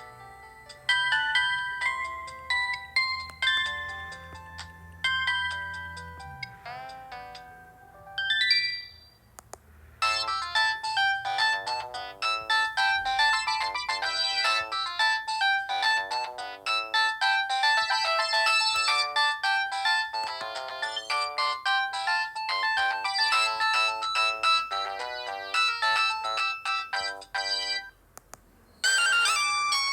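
Electronic ringtone melodies from a Samsung GT-E1205T mobile phone, played one after another. One tune fades out, a short tune with sliding notes follows, and after a brief gap a longer, busier melody starts about ten seconds in. It stops shortly before the end, when another ringtone begins.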